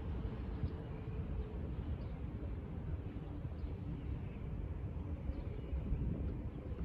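Outdoor city-square ambience: a steady low rumble, with faint short bird chirps now and then.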